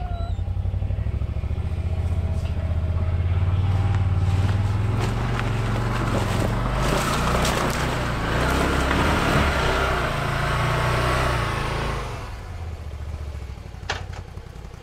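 Can-Am Defender HD10 UTV's V-twin engine running as the vehicle drives through snow, growing louder with a rush of tyre noise as it passes closest about halfway through, then dropping away a couple of seconds before the end.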